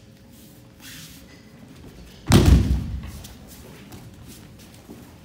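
A judoka thrown with uki otoshi slams onto the tatami mat once, about two seconds in, a loud thud that trails off in the hall's echo.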